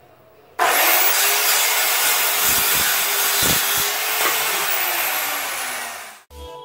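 Oxford OXCS185L 7¼-inch circular saw with a 24-tooth blade starting suddenly about half a second in and cutting through a palochina pine plank, the blade's whine running steady through the loud cut. Near the end the whine sinks slowly in pitch, then cuts off abruptly.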